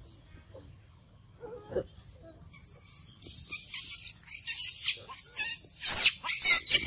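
Young macaque giving a run of very high-pitched squeals and screams that waver up and down in pitch, starting about two seconds in and getting louder toward the end.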